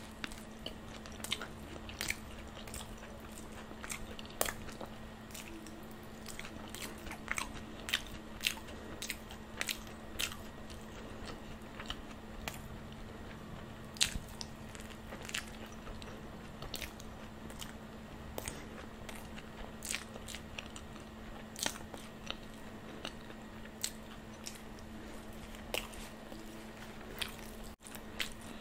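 Close-miked eating: biting and chewing fried bhatura bread, with irregular sharp crunches and wet mouth clicks, a few every second. A steady low hum runs underneath.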